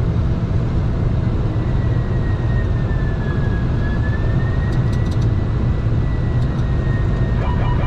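Steady flight-deck noise of a Boeing 747-400 freighter on approach: a dense, even rumble of airflow and engines. Over it runs a thin high whine that sags a little in pitch about three seconds in and then recovers.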